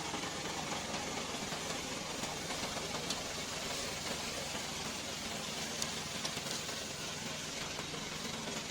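Tracked remote-control lawn mower running steadily: a low engine hum under a steady hiss, with a couple of brief sharp ticks.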